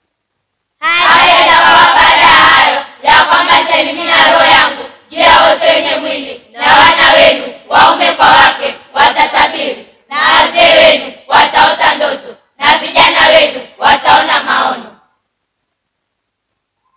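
A group of children singing together in unison, in short phrases with brief pauses between them, starting about a second in and stopping near the end.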